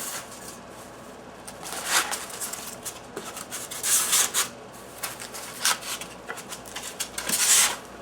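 Handling noise as a moulded resin puzzle box and its packaging are picked up and moved about: a few short rustles and scrapes, the loudest near the end.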